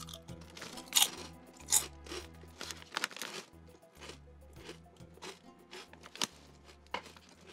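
Someone chewing a mouthful of lentil chips, with several sharp crunches at irregular intervals and softer chewing between them. Quiet background music with a low bass line runs underneath.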